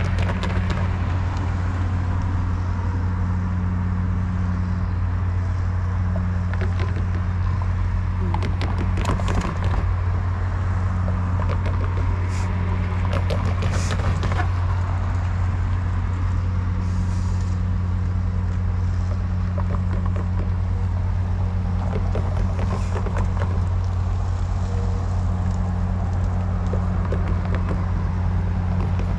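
A steady low engine drone, with road vehicles passing over the grade crossing.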